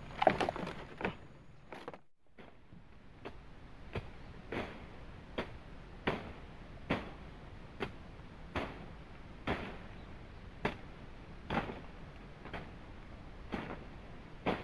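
Tool blows on wood or bamboo in a steady rhythm, a little more than one a second, starting after a brief break about two seconds in, over a steady hiss of rain.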